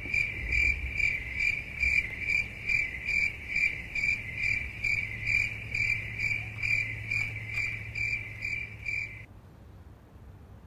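Cricket chirping: one high chirp repeated evenly about two and a half times a second over a low hum, both stopping suddenly about nine seconds in.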